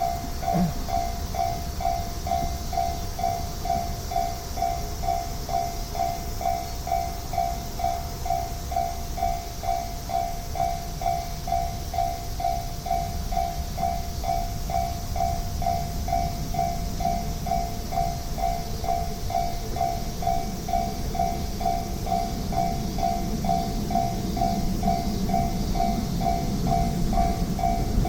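Japanese railroad crossing warning bell ringing in a steady, even rhythm of about two strikes a second, with the low rumble of an approaching train building toward the end.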